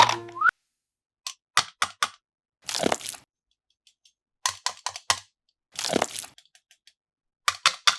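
Plastic toy parts being handled: short clusters of sharp clicks and cracks alternate with brief crunchy bursts, about five groups, with dead silence between them.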